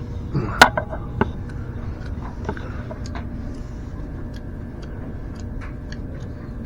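Scattered light clicks and knocks over a steady low hum, the clicks strongest in the first second or so, then lighter and irregular.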